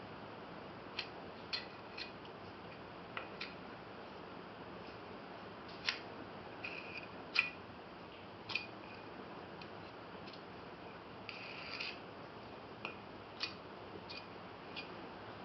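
Light, irregular clicks and taps of small hard objects being handled, about one a second, with a brief scratchy rub near the end, over a steady faint hiss.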